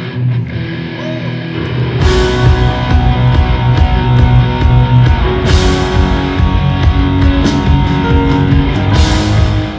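Rock music with guitar and no vocals. About two seconds in, the full band comes in with drums and bass and gets louder, with cymbal crashes then, again about three and a half seconds later, and near the end.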